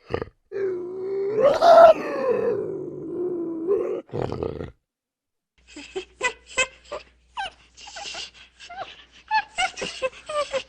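Two separate animal recordings. First a loud, drawn-out grunting call that swells to a higher peak about two seconds in and stops about four and a half seconds in. After a second of silence comes a quick run of short, sharp calls, several a second.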